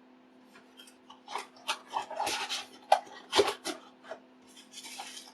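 Cardboard packaging being handled: light knocks, clicks and rubbing, starting about a second in, with a short scraping rub near the end.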